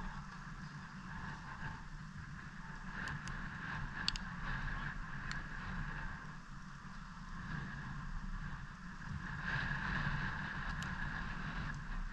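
Wind buffeting the microphone as a steady rumbling noise, with a few faint sharp knocks.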